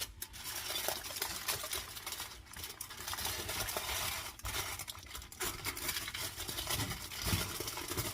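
Hands working seitan dough and handling it in a pan: soft rustling with light, irregular knocks and taps.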